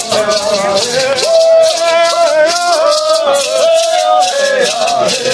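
Maracá rattles shaken in a steady beat while voices sing a chant, with some long held notes.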